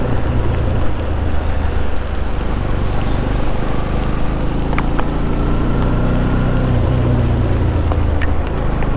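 Motorcycle engine running under way, with wind noise on the microphone. The engine's pitch drops about two and a half seconds in and rises again about seven seconds in.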